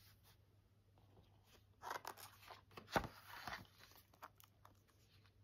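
A page of a picture book being turned by hand: paper rustling and sliding for about two seconds, with a soft knock near the middle as the page settles.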